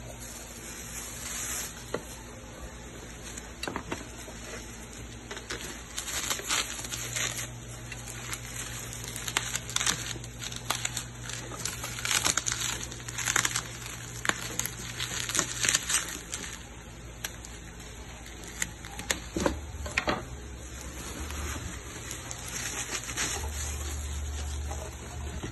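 Plastic bag and bubble wrap crinkling and rustling as the parts of a rice cooker are unwrapped, busiest through the middle, with a couple of light knocks about twenty seconds in.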